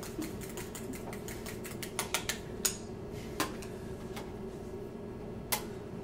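Metal spoon clicking against a small metal bowl while stirring a thick, lumpy honey face-mask mixture: a few light, irregular clicks, several bunched about two to three seconds in and one more near the end, over a steady low hum.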